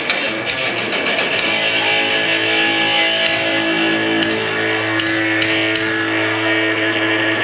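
Metal band playing live, loud: dense distorted electric guitar and drums at first. From about a second and a half in, a distorted guitar chord is held and rings out steadily, with a few sharp hits over it.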